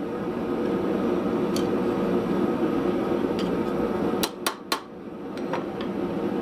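Steady hum of the forge running, with three sharp hammer strikes on metal in quick succession a little past the middle and a few lighter ticks.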